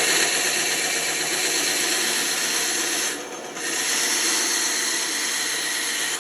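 Bandsaw blade cutting through wood, a steady rasping that eases off briefly about halfway and then picks up again.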